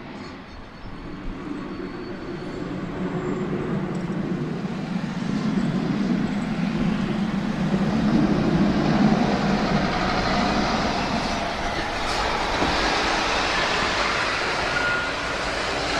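Saab JAS 39 Gripen jet fighter's single-engine jet noise growing from a distant low rumble to loud over the first eight seconds or so, then holding with a harsher, higher hiss as the aircraft comes close.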